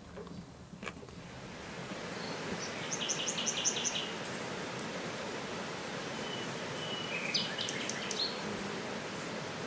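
Outdoor woodland ambience: a steady hiss of background noise with small birds chirping. A quick run of about six high chirps comes about three seconds in, and more calls follow around seven to eight seconds.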